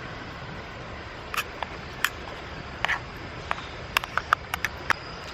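Steady rush of a mountain stream, with a series of about a dozen sharp, light clicks and taps coming irregularly from about one second in until near the end.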